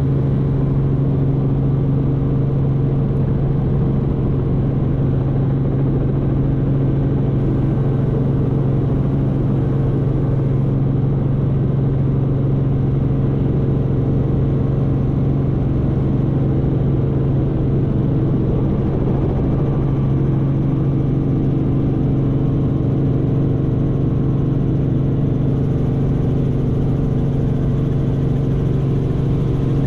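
Robinson R44 helicopter, its six-cylinder Lycoming piston engine and rotors running at a steady, even drone around lift-off.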